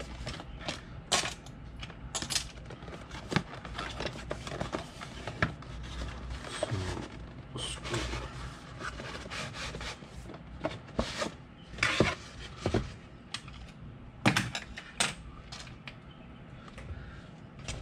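Cardboard retail box of a GoPro Hero13 Black handled and opened by hand: card rubbing and scraping as flaps are unfolded, with scattered sharp taps and knocks, the loudest a few seconds from the end.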